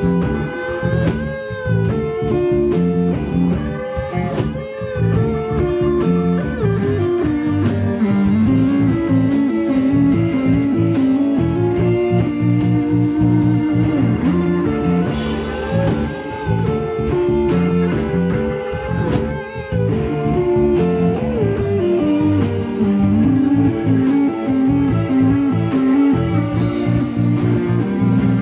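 Live rock band playing an instrumental passage: a hollow-body electric guitar plays a lead line with bent notes over bass guitar and drums.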